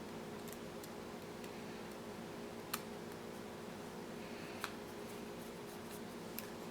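Sharp clicks and light taps of plastic model-kit parts being handled and pressed together, with two louder clicks about two seconds apart, over a steady low hum.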